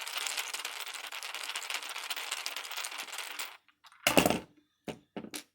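A screw being unscrewed from a mortise lock body: a dense, fast clicking for about three and a half seconds. It is followed by a loud sharp knock at about four seconds and three light clicks.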